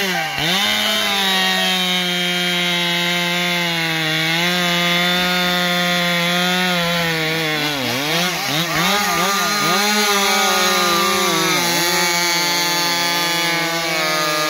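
Ported and piped Farmertec G660 Pro two-stroke chainsaw running at full throttle while cutting through a log. Its high, steady engine note dips briefly a few times under the load of the cut, at the very start and again around eight and twelve seconds in.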